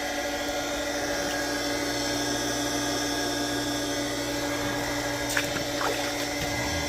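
Well pump motor running steadily with a constant hum and whine as it is brought back up to pressure after priming. A short sharp tick comes about five and a half seconds in.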